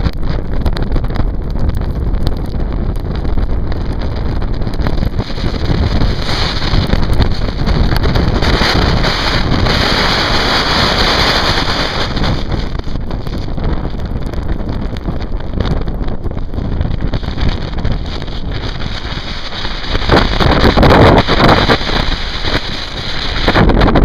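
Hurricane Irene's strong wind gusting across the microphone, a heavy rumbling buffet with a hiss over it, rising and falling with the gusts and strongest about twenty seconds in.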